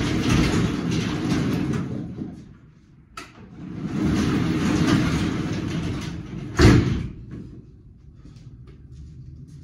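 A large door rolling along its track in two long rattling runs, then shutting with a single loud bang about seven seconds in; a low steady hum follows.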